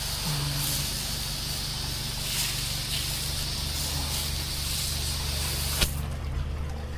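Pressure washer running: a steady engine hum under the hiss of water spraying. A sharp click comes near the end, and the spray hiss drops away while the engine keeps running.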